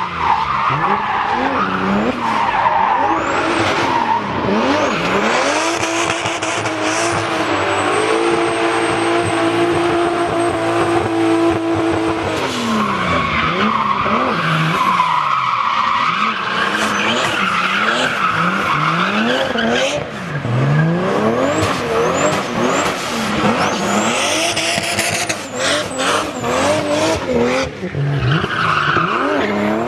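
Car doing burnouts and donuts: the engine revs rise and fall over and over while the spinning tyres squeal without a break. About eight seconds in, the revs are held steady for around four seconds before dropping away again.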